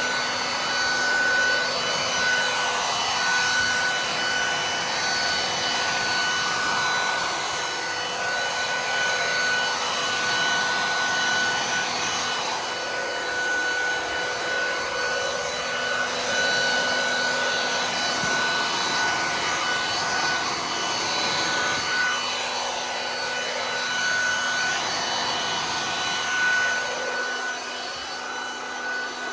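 Ryobi RBV3000CSV 3000 W electric leaf vacuum running steadily, a high motor whine over rushing air, as it sucks up and shreds leaves.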